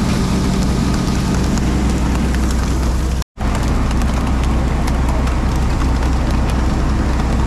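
A fishing boat's engine runs steadily with a low hum, under a stream of sharp knocks and taps from tuna and gear on the deck. The sound cuts out completely for a moment about three seconds in.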